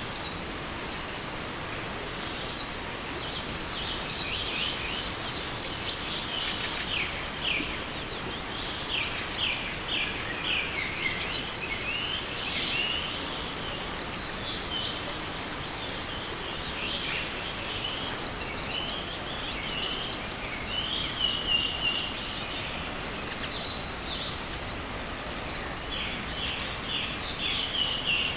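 Wild songbirds singing in many short, high chirping phrases over the steady rush of a forest river.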